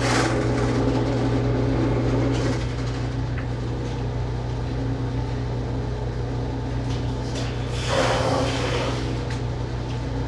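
Electric drain-cleaning machine running steadily with a low motor hum, with a brief burst of rushing noise about eight seconds in.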